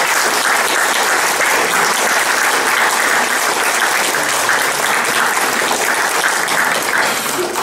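Audience applauding steadily, a dense even patter of many hands clapping.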